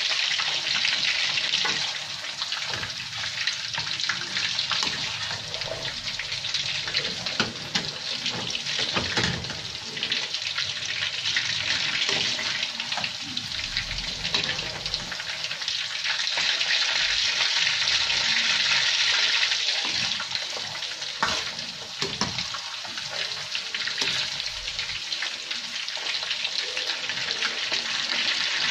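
Battered chicken pieces sizzling in hot cooking oil: a steady, dense hiss with scattered light clicks.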